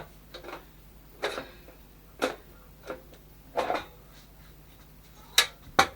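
Metal side panel of a Dell Optiplex 390 desktop case being unlatched and removed: a series of scattered clicks and scrapes, ending in two sharp metallic knocks close together near the end.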